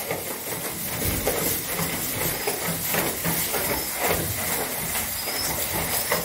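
A loud, steady hiss with faint scuffling and rustling in it, cutting off suddenly at the end.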